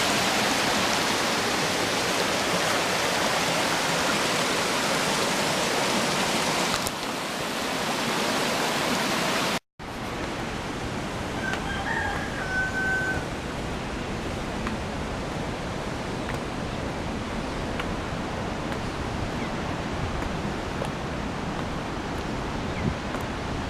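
The Gitgit twin waterfall rushing loudly and steadily. Partway through it cuts to quieter water noise, where a rooster crows a couple of seconds later and again at the end.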